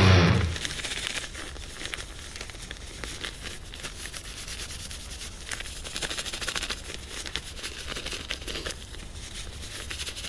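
Handling of an air-activated hand warmer packet: light crinkling and scratchy rubbing with many small crackles.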